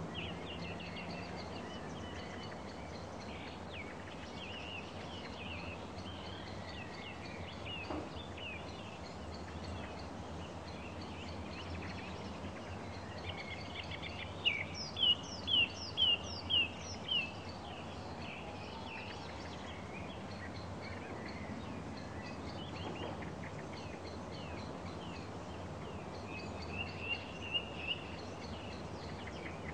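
Songbirds chirping and singing over a steady low rumble. About halfway through, one bird gives a loud run of about six sharp, repeated notes, and a shorter run of three or four comes near the end.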